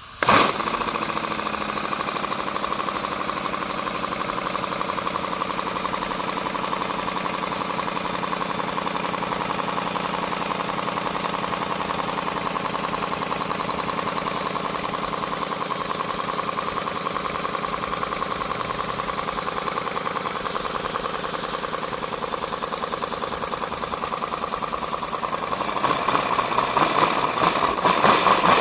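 3D-printed plastic V4 compressed-air engine starting up on compressor air and running smoothly, with rapid, even exhaust pulses through its empty dual exhaust. It gets louder about three-quarters of the way through.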